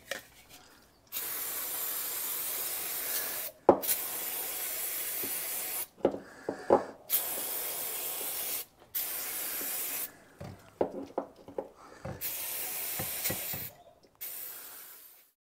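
Aerosol brake cleaner sprayed in six short bursts, one to two and a half seconds each, to clean two-stroke carburettor parts, with clicks and small knocks of the parts being handled between bursts.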